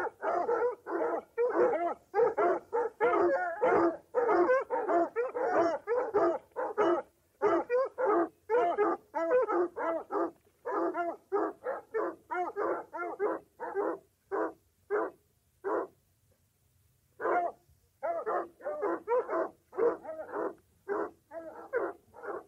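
Dog barking rapidly and excitedly on a chase, about three quick barks a second, with a pause of about a second and a half roughly two-thirds of the way through before the barking resumes.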